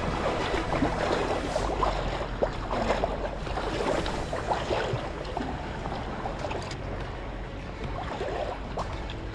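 Water lapping and sloshing irregularly, with a low rumble of wind.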